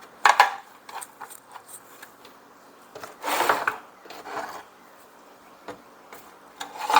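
Scattered rubbing and scraping handling noises as an in-tank fuel filter is fitted onto a new fuel line and pushed into a leaf blower's fuel tank, with the longest scrape about three seconds in.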